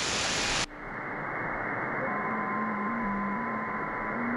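Shortwave receiver audio: a wide hiss of band noise that cuts suddenly to a narrower, duller hiss about two-thirds of a second in. From about two seconds in, FT8 digital signals on the 80-metre band come through as faint steady tones, each hopping between nearby pitches.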